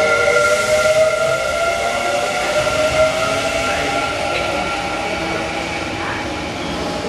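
Kintetsu 9020 series electric train pulling out: its motors whine in several steady tones, the lowest rising slightly, fading over the first few seconds as the train leaves, over a steady rolling rumble and hiss from wheels and rails.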